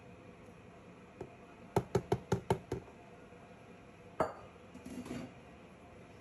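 Kitchenware knocking: a quick run of six hard knocks, then about a second and a half later a single louder knock with a short ring.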